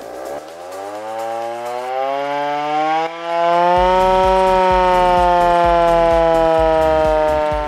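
Hand-cranked mechanical Second World War air-raid siren winding up: its wail rises steadily in pitch and loudness for about four seconds as the crank is turned, holds near the top, then starts to slowly fall as the cranking stops.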